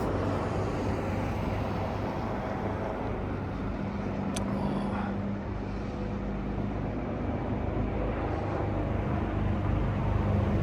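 Engines of slow-moving road vehicles running steadily, a low hum, with one short sharp click about four seconds in.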